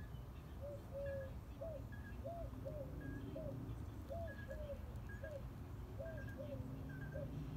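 Birds calling: a short, low hooting note repeated about a dozen times, often in pairs, with a fainter, higher chirp about once a second, over a steady low background rumble.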